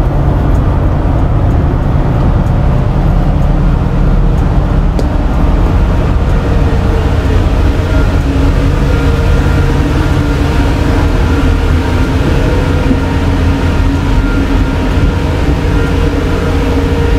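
Tokyo Bay Ferry car ferry's engines running: a loud, steady low rumble, with a droning hum joining in from about a third of the way through.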